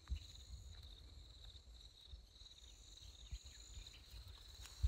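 Faint, steady high insect chorus with a fast pulsing trill, over soft low thuds of footsteps through grass and a brief knock at the very end.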